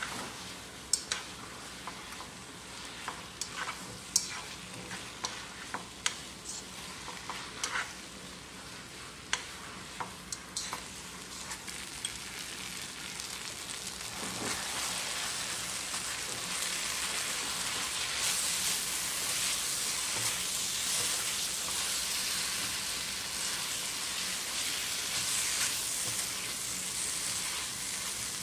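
Food sizzling in a hot wok during stir-frying, with sharp knocks of a utensil against the wok in the first half. About halfway through, the sizzling swells and grows louder.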